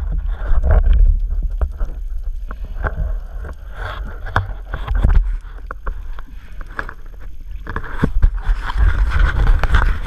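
Water churning and rumbling against the camera, loud and uneven, with many scattered sharp clicks and knocks.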